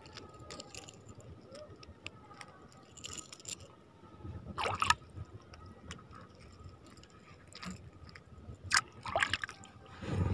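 Shallow sea water sloshing and splashing as a small fish is reeled in and landed by hand. There is a louder splash about halfway through and a few sharp clicks near the end.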